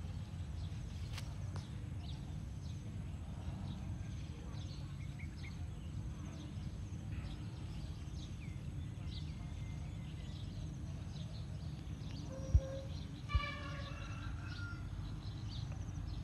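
Outdoor ambience: scattered bird chirps over a steady low rumble, with two sharp knocks a little under a second apart about three-quarters of the way through.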